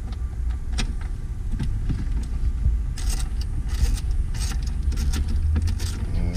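Scattered sharp metal clicks, then a busier run of clicking and clinking about halfway through, as a hand works a tool on the battery hold-down bracket bolt. A steady low rumble runs underneath.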